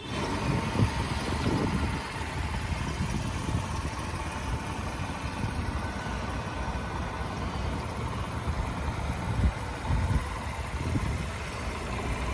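Honda Z50J's small 49cc four-stroke single-cylinder engine idling steadily.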